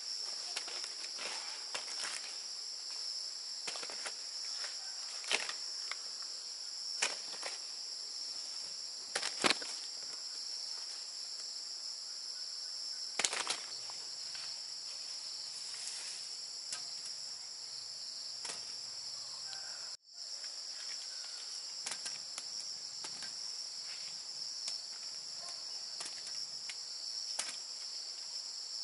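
Insects trilling in a steady high-pitched chorus, with scattered light clicks and rustles over it. The sound drops out for a split second about two-thirds of the way through.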